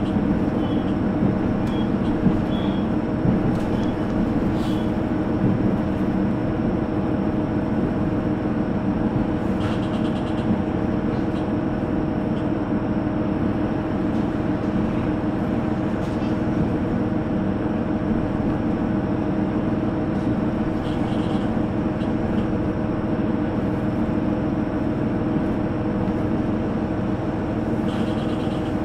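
Cabin running noise of a JR Hokkaido H100 diesel-electric railcar under way: a steady drone of engine and wheels on the rails, with a constant whine and now and then a faint click.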